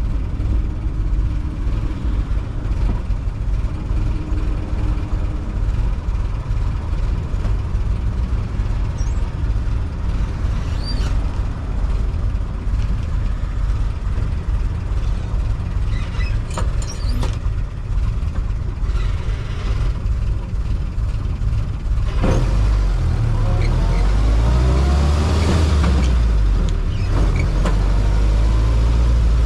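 Jeep CJ5 engine running under way with road and wind noise, with a few brief clicks midway. About three quarters of the way through the engine grows louder and rises in pitch as it accelerates.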